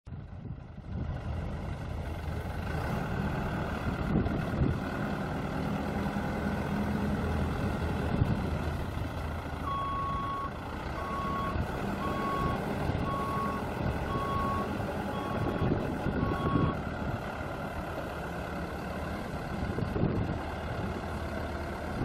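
New Holland LB90 backhoe's four-cylinder turbo diesel engine running steadily. About ten seconds in, its reversing alarm beeps roughly once a second, seven times, signalling that the machine is in reverse.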